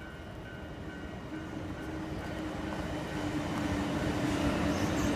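Kintetsu Nara Line electric train approaching and growing steadily louder, with a level crossing warning bell ringing about twice a second and fading under the train noise.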